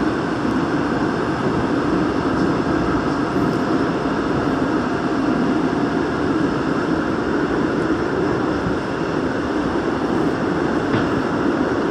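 Daegu Metro Line 2 subway train running steadily through a tunnel: a continuous, even rumble of wheels on rails and running gear.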